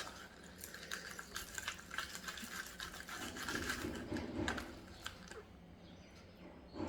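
Slime being mixed in a bowl after extra activator has firmed it up: irregular wet squelching with many small sticky clicks.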